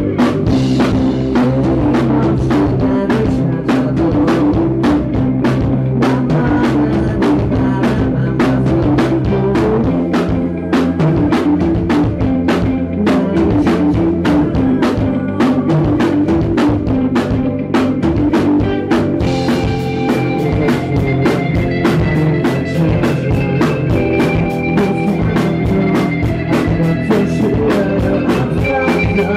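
Live indie rock band playing loud: drum kit keeping a steady beat under electric guitar, bass and keyboard. Higher held notes come in about twenty seconds in. The recording is distorted where the loud sound overloads the microphone.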